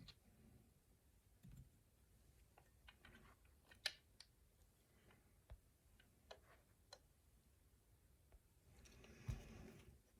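Faint, irregular small metallic clicks and ticks of a lock pick and tension wrench working the pins inside a rail lock's core.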